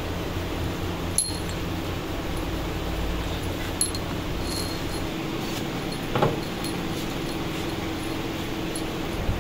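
A steady mechanical hum with a few sharp metallic clinks, about four, from steel bolts and washers being handled and set into aluminium hydraulic gear-pump bodies.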